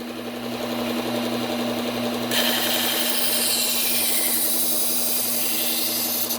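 Bucktool low-speed belt sander running with a steady motor hum. About two seconds in, a higher hissing grind joins as a steel kitchen knife blade is worked against the Cubitron 120-grit belt.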